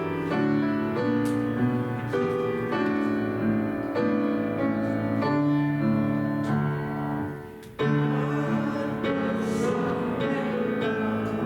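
Church postlude played on a keyboard instrument: held chords moving from one to the next, with a brief break about eight seconds in.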